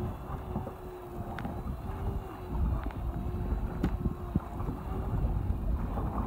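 Wind buffeting the microphone on a small boat at sea, over choppy water and a steady mechanical hum, with a few faint clicks.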